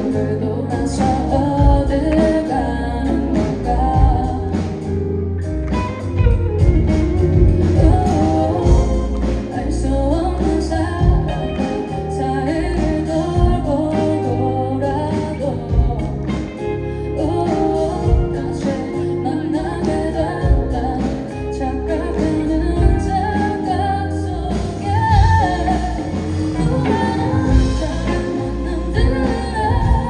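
Live band playing a song: a woman singing over electric guitar and drums.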